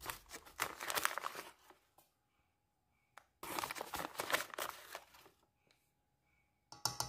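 Paper bag of cornstarch rustling and crinkling as it is handled and a spoon scoops powder from it, in two bursts of a second or two each, with a few light clicks near the end.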